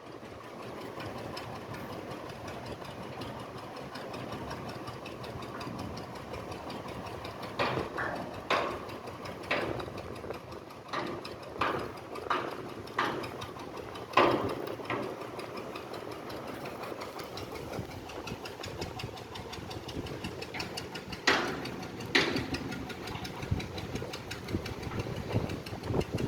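An engine running steadily, with a run of sharp knocks about once a second in the middle and two more knocks near the end.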